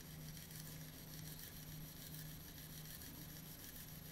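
Faint, steady hum of a DigiHero 3D pen's small filament-feed motor pushing purple PLA through the heated nozzle as it welds a seam.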